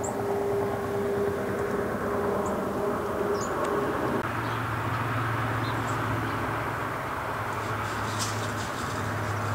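Steady low mechanical rumble with a hum that drops sharply in pitch about four seconds in, with a few faint, short, high chirps from small birds over it.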